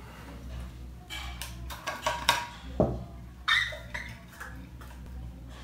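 Stainless-steel vacuum bottle being opened: the metal cup lid clinks and knocks as it is unscrewed and set down on the table, with a louder ringing knock about three and a half seconds in, and the stopper is twisted open.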